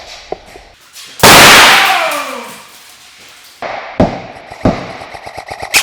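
A very loud sudden bang about a second in that echoes and fades over a couple of seconds, followed by scattered single airsoft gun shots and a quick burst of shots near the end.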